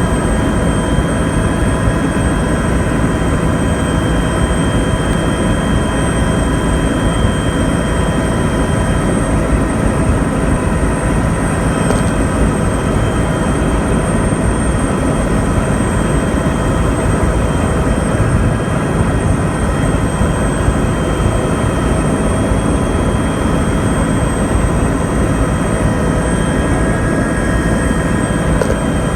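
Helicopter running steadily: a loud, unchanging engine and rotor drone with a steady high whine over it.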